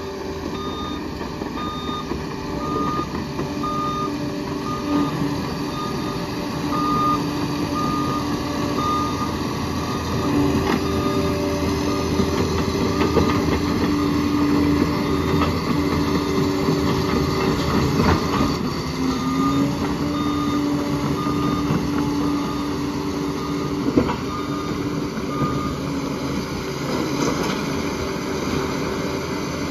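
Liebherr 746 crawler dozer's diesel engine running under steady load, with its reversing alarm beeping about once a second while it backs up, first for the opening stretch and again for several seconds later on.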